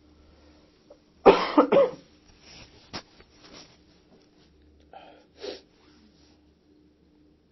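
A person coughing: a quick run of three loud coughs about a second in, followed by a few smaller throat sounds near the five-second mark, over a faint steady hum.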